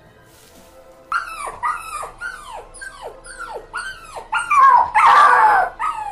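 A dog yelping: a run of short high yelps, each falling in pitch, about two a second, starting about a second in and ending in a louder, longer cry near the end, over background music.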